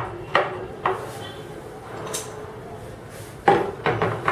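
Hard knocks and clatter of a test-bench stand being handled and fitted into place: two knocks in the first second, then a quick run of clatter about three and a half seconds in.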